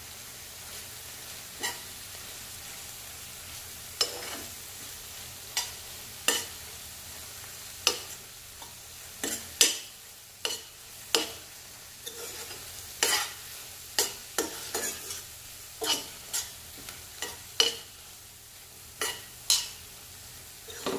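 Metal spoon scraping and stirring scrambled egg with onion and tomato in a stainless steel frying pan: sharp scrapes every second or two, coming faster in the second half, over a steady sizzle of the frying egg.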